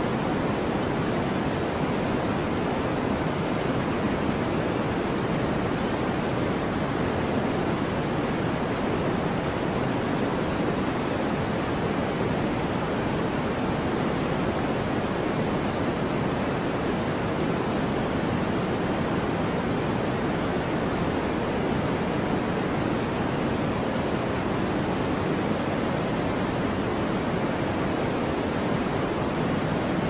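Steady sleep-aid noise: a constant, even hiss weighted toward the low and middle range, unchanging throughout.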